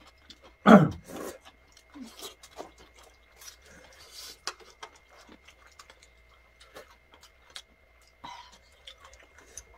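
Eating at the table: chopsticks clicking and scraping against plastic containers and plates, with chewing and slurping of spicy braised chicken. A brief louder sound comes about a second in.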